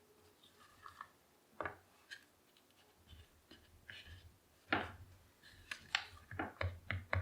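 Light clicks and taps of a buffer tube and polymer pistol grip being handled and fitted together for a shotgun stock, a few scattered at first, then a quick run of clicks, about three a second, near the end.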